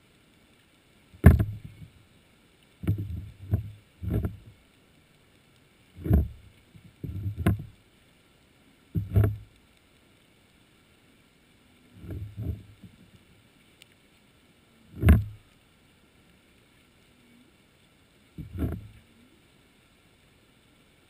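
About ten irregularly spaced, muffled deep thumps with short tails, heard through an underwater camera housing, with near silence between them.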